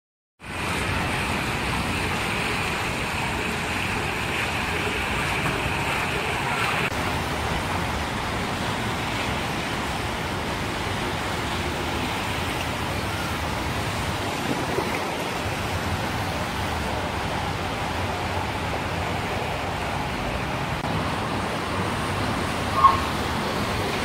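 Waterfall fountain: sheets of water pouring over stone ledges into shallow pools, a steady rushing splash with a brighter hiss for the first seven seconds or so. A single short click near the end.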